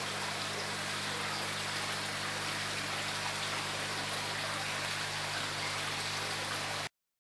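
Koi pond water splashing and trickling steadily, over a steady low hum; it cuts off suddenly near the end.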